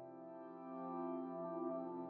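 Slow ambient background music of sustained, held chords, getting louder about a second in.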